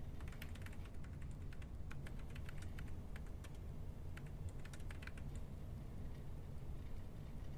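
Typing on a desktop computer keyboard in short, irregular runs of keystrokes, which stop about five and a half seconds in, over a steady low hum.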